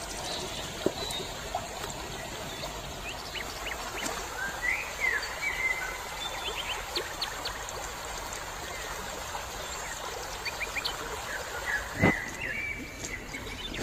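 Shallow stream running over stones with birds calling: a steady rush of water under short chirps and sliding whistles that come and go, and one dull knock about twelve seconds in.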